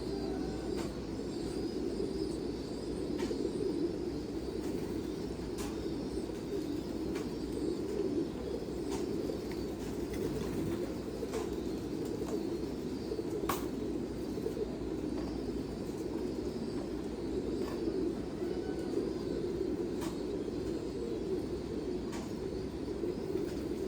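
Many domestic pigeons cooing together in a loft, a steady low chorus, with scattered sharp clicks and taps.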